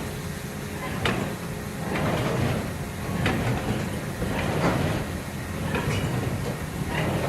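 Mass-timber test building shaken on a shake table through a simulated Chi-Chi earthquake: a steady low rumble with irregular creaks and knocks from the structure, roughly one a second.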